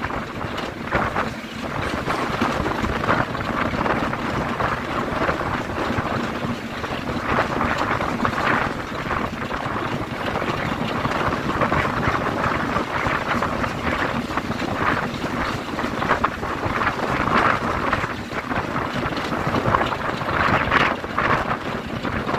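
A train running behind a Class 33 diesel locomotive, with its Sulzer eight-cylinder engine, heard from an open window just behind it. The locomotive's steady drone and running noise are largely covered by gusting wind buffeting the microphone.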